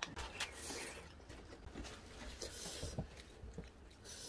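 Quiet eating sounds: a spoon and chopsticks tapping and scraping as noodle soup is served into a paper cup and eaten from it, a few light scattered taps.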